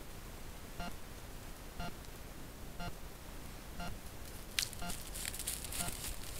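A grey wolf passing close to a trail camera, heard as a burst of crackling rustle that starts sharply about four and a half seconds in and lasts over a second. Under it is a faint electronic tick, about once a second, over a low steady hiss.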